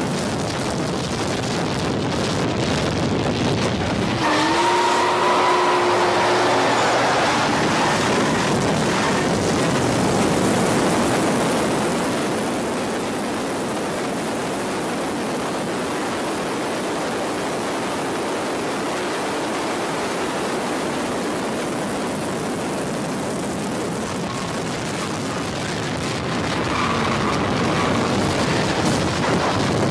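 Drift cars running hard, engine and tyre noise blending into a steady rushing sound. A pitched engine note rises about four seconds in and holds for a few seconds.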